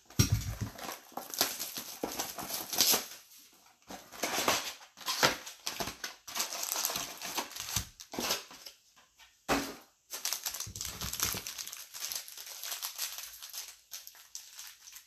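A 2020 Select baseball card box being opened by hand, with the crinkling and rustling of its wrapper, cardboard and foil card packs as the packs are slid out and stacked, broken by a few short pauses and knocks.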